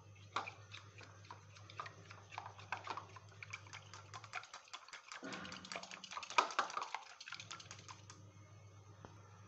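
Green silicone-coated whisk beating a raw egg in a small ceramic bowl: rapid, light clicking and tapping of the whisk against the bowl, stopping about eight seconds in.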